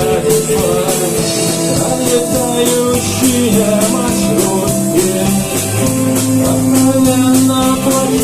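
Rock music with guitar and a steady drum beat, held notes over it.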